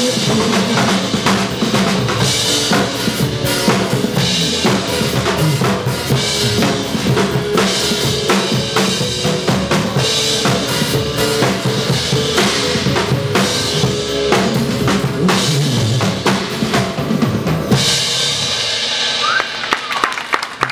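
Drum kit played along with a pop song's backing track: a steady beat of kick drum, snare and cymbals over the song's music. About three seconds before the end the playing and music stop, leaving crowd noise.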